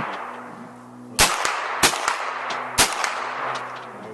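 Gunshots: three loud sharp reports about a second apart, each with a long echoing tail, and fainter shots between them.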